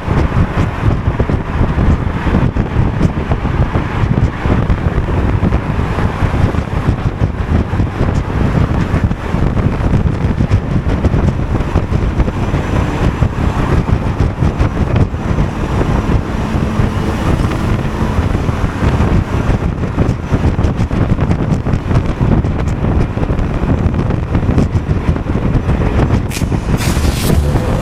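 Honda Forza 250 scooter's single-cylinder engine running at a steady pace while riding, mixed with steady wind rush and road noise.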